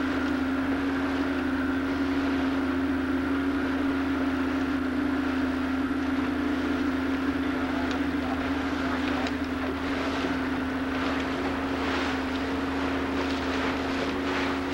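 Motorboat engine running steadily under way, a constant droning hum heard from aboard, with several short hissing rushes of spray or wind joining it in the second half.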